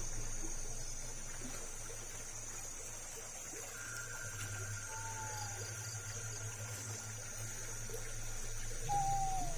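Night insects shrilling steadily in one high, even tone over a low hum, with two short, falling, whistle-like notes, one about five seconds in and one near the end.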